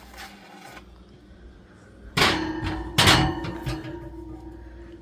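Metal loaf pans being set into the oven: two loud metallic clanks about a second apart as they meet the wire oven rack, then a ringing tone that lingers and a few lighter knocks.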